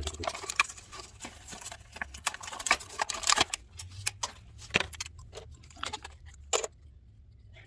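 Irregular sharp clicks and light metallic clinks from handling a new brass water heater pressure relief valve while wrapping PTFE thread tape around its threads. The clicks stop about seven seconds in, leaving a low hum.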